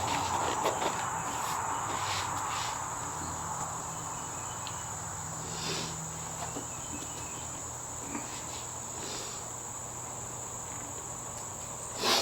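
Crickets chirring steadily in a continuous high band, with a few faint clicks and knocks as the motorcycle seat is worked onto its mount.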